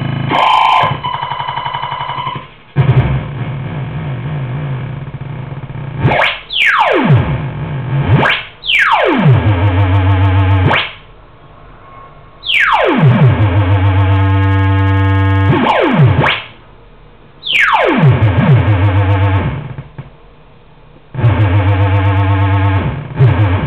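Homemade piggy-bank noise synth, a 4093 quad NAND oscillator with a 4046 PLL tracker, playing harsh buzzing electronic tones. Four times the pitch sweeps down from high and settles into a low buzz, and the sound cuts in and out abruptly as the knobs and contacts are worked.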